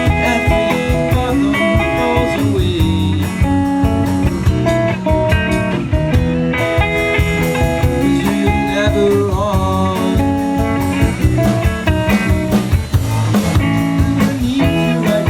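A live band playing a bluesy rock song's instrumental opening, with guitar lines that bend in pitch over bass and drums.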